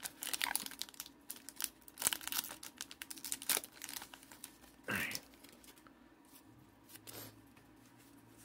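Foil wrapper of a Pokémon trading card booster pack being torn and crinkled by hand, with quick crackles through the first half and a louder rustle about five seconds in; quieter near the end as the cards are taken out.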